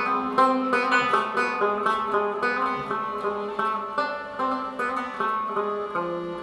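Rubab plucked in a quick melody, several notes a second, each note starting sharply and ringing briefly.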